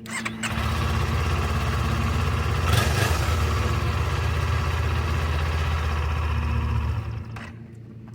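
Kawasaki Ninja 400 parallel-twin engine running on its new battery. It comes up loud just after the start, swells briefly about three seconds in, and drops back near the end.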